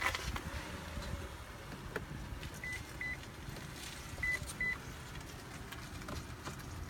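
Two pairs of short, high beeps from a 2017 Toyota Sienna minivan's warning beeper, the second pair about a second and a half after the first, over a low steady rumble.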